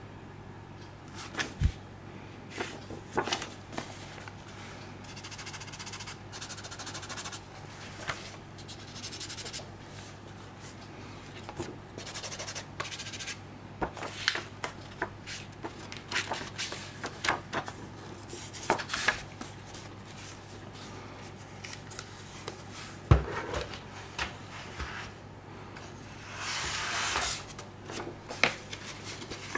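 Cardboard box and paper inserts handled by gloved hands: scattered rustles, slides and light taps, with a sharp knock about two-thirds of the way through and a longer rustling slide near the end. A steady low hum runs underneath.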